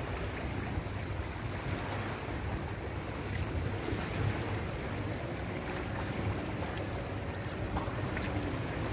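Small waves lapping at the water's edge, with steady wind buffeting the microphone.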